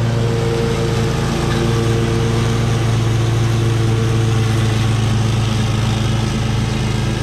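Gravely 52-inch residential zero-turn mower running at full throttle with its blades engaged, cutting through tall wet grass. The engine holds a steady pitch under the load.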